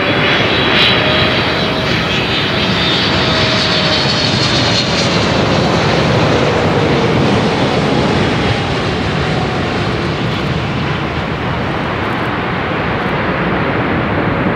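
Jet engines of a Boeing 777 landing close by: a loud, steady engine noise with a whine that falls slowly in pitch as the airliner passes and touches down, easing slightly in level as it rolls out along the runway.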